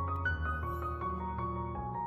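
Background music: slow, soft melodic notes over a held low note.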